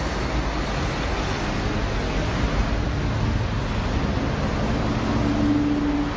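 Steady city street traffic noise from cars and buses, picked up by a moving handheld camera's microphone. A low steady hum stands out of it near the end.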